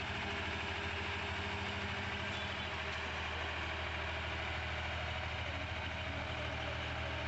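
Diesel tractor engine running steadily, a low, even hum, as the tractor pulls a loaded trolley.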